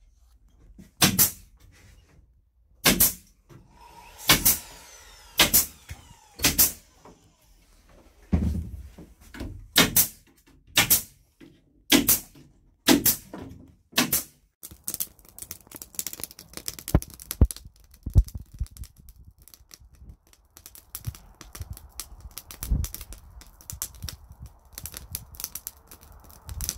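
A pneumatic nail gun firing single shots, about one every second or so, fixing wooden strips to the bus's metal wall frame. About halfway through, the shots give way to a run of quicker, lighter clicks and knocks.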